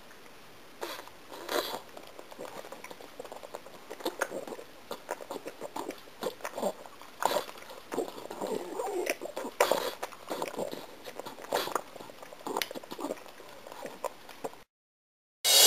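A pug chewing gum: irregular smacking clicks of its mouth and jaws, cutting off suddenly about a second before the end.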